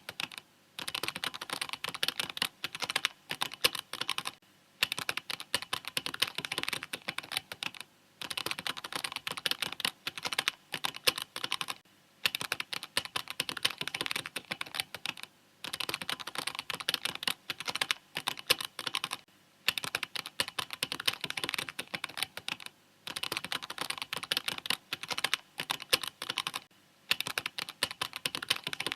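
Mechanical keyboard typing: fast, dense keystroke clicks in steady runs of a few seconds, each broken by a brief pause, about every three and a half seconds.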